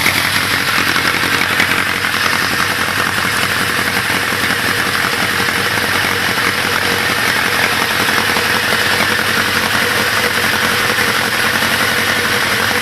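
Honda CB1000 Big One inline-four engine idling steadily with a dense mechanical clatter, the suspect noise from a high-mileage engine.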